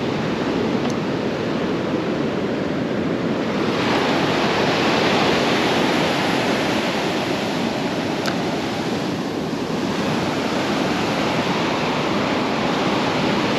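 Ocean surf breaking and washing up the beach in a steady rush that swells about four seconds in.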